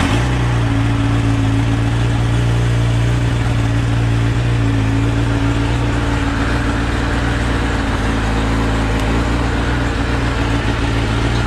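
Kawasaki ZX-10R's inline-four engine idling steadily through its stock exhaust, with no revving.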